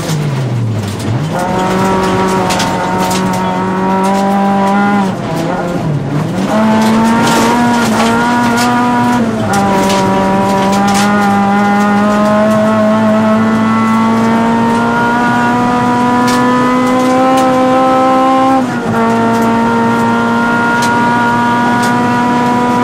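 Honda Civic Type-R rally car's four-cylinder engine, heard from inside the cabin, pulling hard at high revs on a gravel stage. Its pitch falls sharply as it brakes and downshifts about a second in and again around five seconds, then climbs and holds high, with gear changes near ten and nineteen seconds. Loose gravel ticks against the underside.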